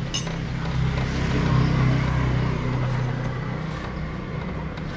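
Street traffic: a motor vehicle's engine hum swells and then fades over a couple of seconds, over a steady low rumble.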